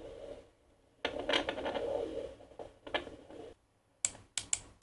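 Fetal Doppler's speaker giving scratchy static as its gelled probe is slid over the lower abdomen in search of the heartbeat, with short gaps and a few sharp crackles near the end.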